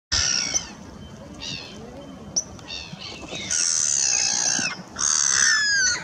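Black-headed gulls calling: a string of short calls, then two longer drawn-out calls in the second half, the last ending in falling notes.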